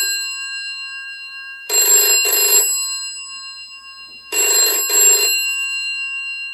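Antique candlestick telephone's bell box ringing: twice, each ring a rapid hammering on the bells in two short bursts, with the bells ringing on and fading in between.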